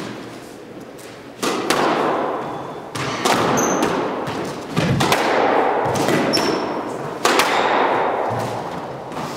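Squash rally: a series of sharp smacks as the ball is struck by rackets and hits the walls, each ringing out in the court's hard echo. Short squeaks of sneakers on the wooden floor come in between.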